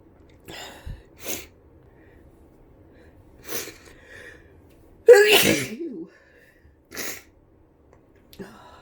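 A woman with the flu sneezing once, loud and voiced, about five seconds in. Several short, quick breaths come before and after it.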